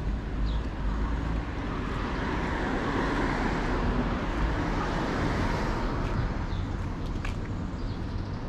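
A road vehicle passing by, its noise swelling to a peak about halfway through and then fading, over a steady low traffic rumble.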